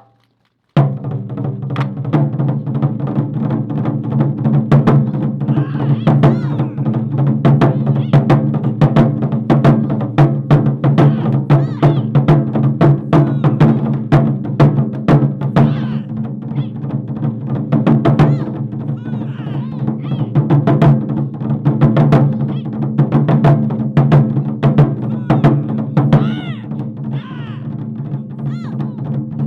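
Japanese taiko drums played by an ensemble, starting suddenly about a second in with a fast, dense run of strikes that keeps going. Steady low tones sound underneath, and higher sliding tones come in near the end.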